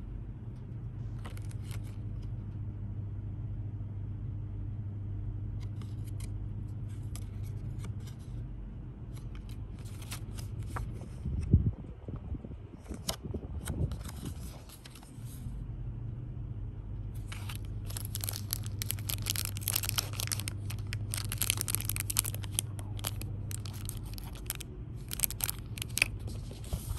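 Paper cards and a clear plastic bag being handled while unboxing: scattered rustles and taps, one sharp knock partway through, and dense crinkling of plastic in the later part. A steady low hum lies underneath.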